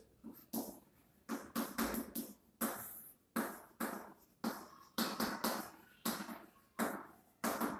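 Chalk writing on a blackboard: a string of short, sharp chalk strokes and taps, about two a second, each fading quickly.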